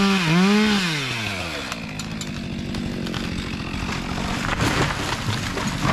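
Two-stroke chainsaw cutting, its engine pitch wavering under load, then falling off to idle about a second in. While it idles, a scatter of sharp cracks and snaps follows, most of them near the end.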